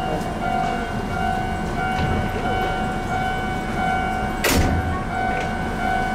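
Ohmi Railway 800 series electric train standing at a station, giving off a steady hum with two held tones. A single sharp clunk comes about four and a half seconds in.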